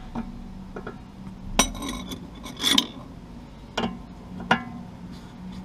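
Steel spanners clinking and knocking against the Honda S2000's front tie rod and its lock nut during a toe adjustment: four or so separate metallic clinks, one of them a short rattle.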